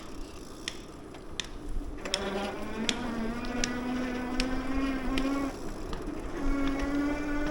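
A small engine droning steadily, its pitch slowly rising, with a short break about two-thirds of the way through before it carries on a little higher; a few faint clicks.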